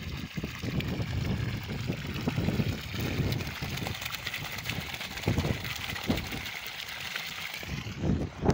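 Water jetting from the end of a black plastic pipe and splashing into a muddy pool, a steady hissing splash with irregular low rumbles under it, thinning near the end.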